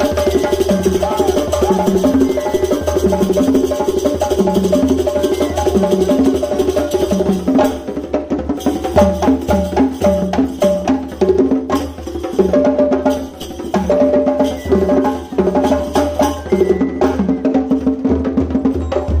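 Music for a zaouli mask dance: busy percussion with wood-block-like strokes under a short melodic figure that repeats over and over.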